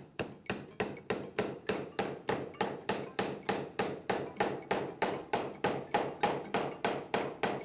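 Hammer driving nails into wood in rapid, even blows, about four a second.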